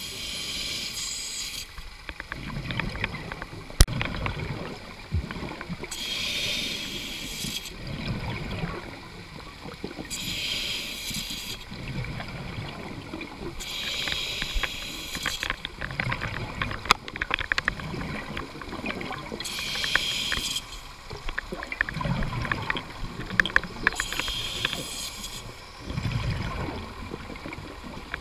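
A scuba diver breathing through a regulator underwater, in a slow steady rhythm. Each inhalation is a hiss lasting about a second and a half, roughly every four to five seconds. Between them the exhaled bubbles rumble and crackle.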